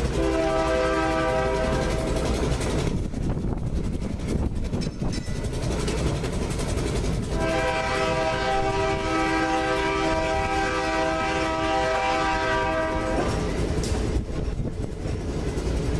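Railway air horn sounding twice: a short blast of under two seconds, then a long blast of about six seconds starting around seven seconds in. Under it is the steady rumble of a streetcar rolling past.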